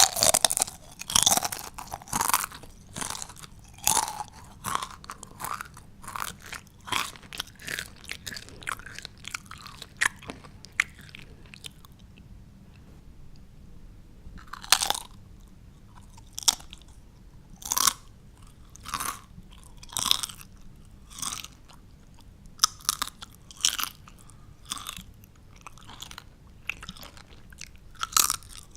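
Potato chips being bitten and chewed close to the microphone: crisp, irregular crunches, dense at first, pausing briefly about halfway through, then coming more sparsely.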